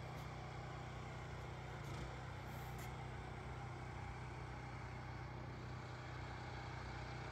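A steady low mechanical hum, like a motor running, with a few faint clicks about two seconds in.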